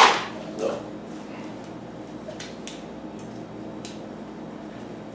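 A sharp clack at the start, then a few faint clicks and taps as small bicycle derailleur parts and tools are handled, over a steady low hum.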